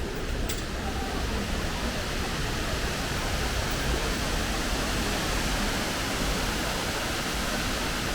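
Steady rush of water falling at Fukuroda Falls, an even, unbroken noise.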